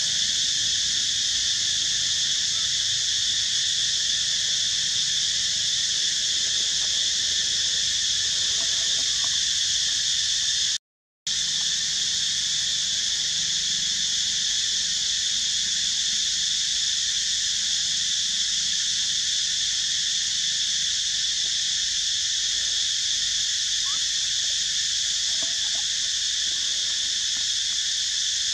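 Steady, high-pitched chorus of insects, unbroken except for a half-second dropout about eleven seconds in.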